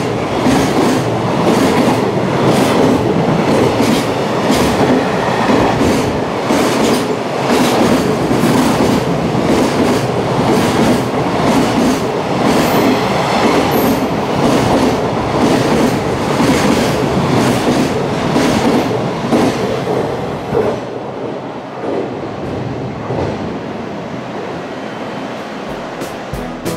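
Long freight container train passing close at speed: a heavy rumble with a rhythmic clatter of wheels over the rail joints. A little after twenty seconds in, the sound drops and grows duller.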